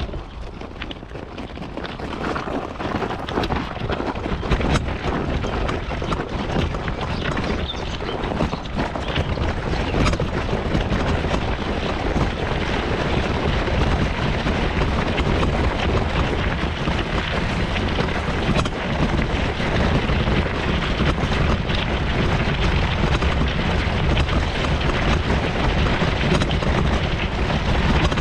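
Mobility scooter on the move: steady low rumble with wind buffeting the microphone and frequent short knocks and jolts.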